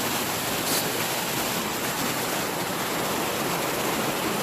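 Steady rush of a waterfall, an even roar of falling water that holds at one level.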